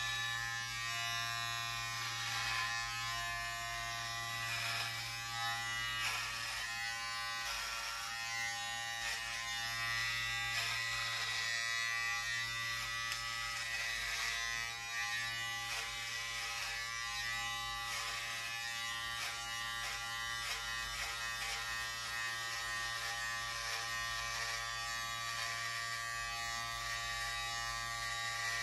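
Electric hair clippers running with a steady buzz while cutting hair down to a buzz cut.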